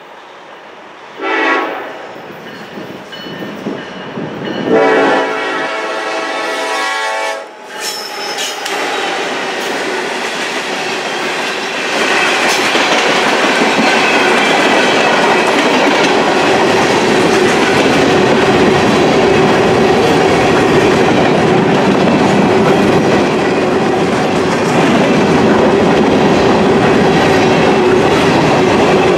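Diesel locomotive air horn on a Norfolk Southern EMD SD70ACE sounds a short blast, then a longer one of about three seconds, for the grade crossing. The locomotive and loaded covered grain hopper cars then roll past close by, a steady clatter of wheels over the rails that gets louder about twelve seconds in.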